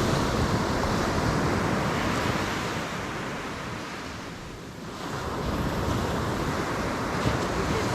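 Ocean surf washing on a sandy beach, with wind buffeting the microphone; the wash ebbs about four seconds in and builds again.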